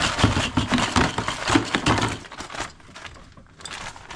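Crinkling and rustling of a waterproof dry bag being handled and emptied, with small items clattering into a plastic tub. It is busiest for the first two and a half seconds, then dies down.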